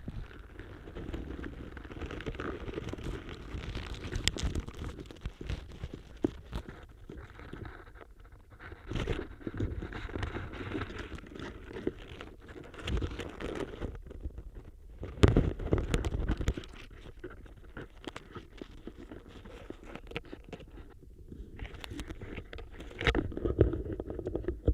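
Autumn leaves crackling and rustling against a contact microphone, an irregular run of small crinkles and scrapes with a close, muffled body. Louder bouts come a few seconds in, around the middle, and near the end.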